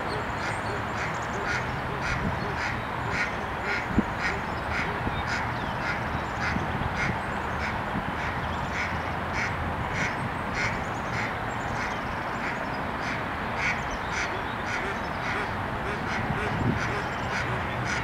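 Ducks quacking in a steady series of short calls, about two a second, over a constant hiss.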